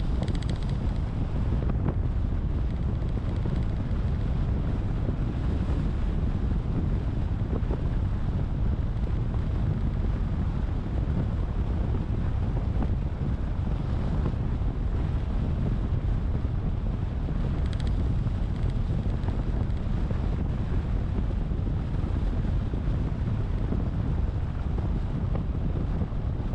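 Steady low rumble of wind buffeting the microphone and road noise from a car driving along.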